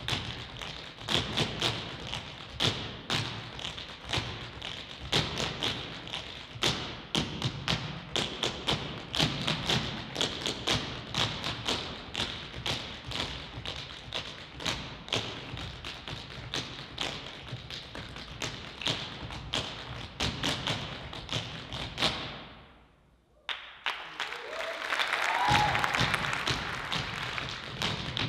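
Fast, dense percussion from the show's African-style score: a steady stream of sharp taps over low thumps. About 22 seconds in it fades out, and after a second of near silence a softer sound with a wavering tone comes in.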